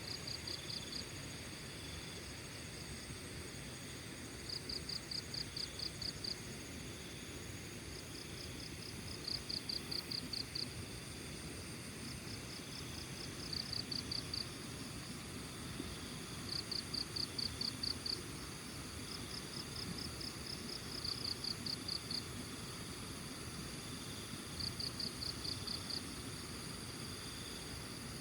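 Crickets chirping in short trains of rapid pulses that repeat every few seconds, over a steady high insect trill. A low, even rushing sound of a stream runs underneath.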